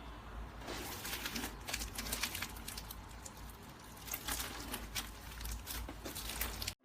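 Slime being handled and squished: a quiet run of small, irregular sticky clicks and crackles.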